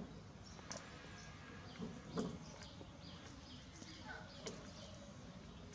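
Chicks cheeping repeatedly in short high peeps, with a couple of low clucks from the cockerel about two seconds in and a few sharp ticks.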